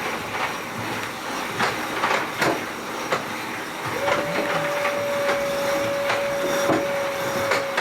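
Racing sailboat under way: a steady rush of water and wind with repeated irregular knocks and clatter from the hull and gear. From about halfway a steady high hum sets in and holds.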